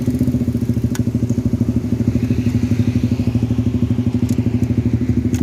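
Motorcycle engine running steadily at low speed close by, with a fast, even pulsing beat and no revving. A few faint clicks are heard over it.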